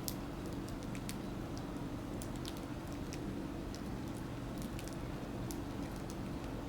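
Sparrows pecking at seed: light, irregular little ticks over a steady low hum.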